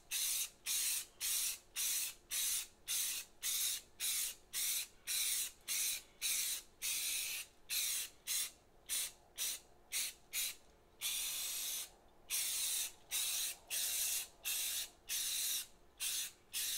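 Spray can of primer hissing in short bursts, about two a second, with one longer spray about eleven seconds in. The wall is getting light dusting coats of primer.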